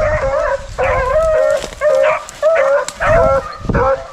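A pack of beagles baying in short repeated bawls, several voices overlapping at two or three calls a second: hounds giving tongue while running a rabbit's track.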